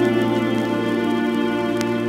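A Wurlitzer theatre pipe organ with three manuals and fourteen ranks holds a sustained chord, its many notes steady and unchanging.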